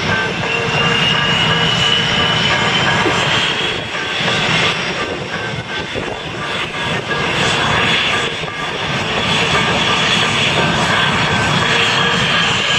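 Boeing F/A-18 Hornets' twin General Electric F404 turbofan engines running at taxi power: a loud, steady jet rumble with a high whine that rises a little in pitch over the first few seconds, then holds.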